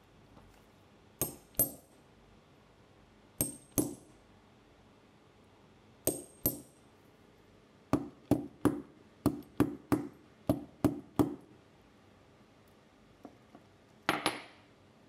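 Hammer striking a hand eyelet setter and a leather strap on a steel block to set small metal eyelets: sharp metallic taps in three pairs, then a quicker run of about nine blows. A louder clatter comes near the end.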